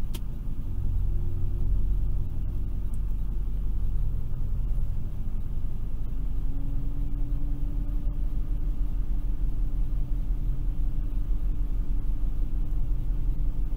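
Jeep Grand Cherokee engine idling, heard from inside the cabin, with the electric cooling fan forced on and running as a steady rumble that swells just after the start. The fan's electrical load pulls the battery voltage below 12 V at idle, where the underdriven alternator cannot keep up. A steady hum joins about six seconds in.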